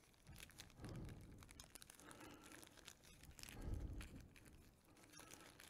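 Faint handling noise of small pen-kit parts turned over in the hands: scattered light clicks and rustles, with a couple of duller bumps about a second in and near four seconds.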